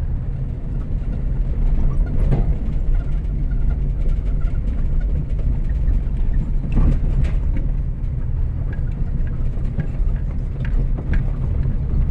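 Car heard from inside the cabin on an unpaved dirt road: steady low engine and tyre rumble with scattered knocks and rattles as it goes over the rough surface.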